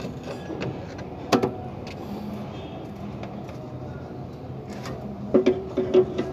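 Metal clutch parts knocking against the flywheel as a clutch disc and pressure plate are worked into place by hand: a sharp click about a second in, then a quick cluster of clanks near the end with a brief metallic ring. A steady low hum runs underneath.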